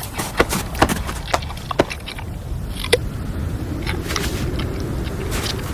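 Footsteps crunching in snow, about two steps a second for the first two seconds, with a few further crunches later, over a steady low wind rumble.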